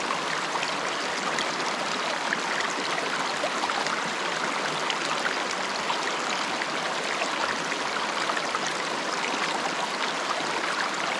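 Small, shallow mountain stream running over rocks: a steady rushing of water with fine trickles and small splashes.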